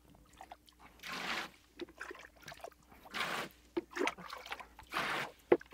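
Water sloshing and splashing in several short bursts as a plastic jug is dipped into a glass tank and lifted out, bailing the water out to lower its level.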